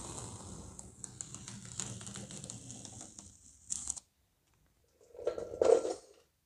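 Masking tape being peeled off a freshly seam-sealed body panel: a crackling, clicking rip that cuts off about four seconds in, then one short, louder rustle a second later.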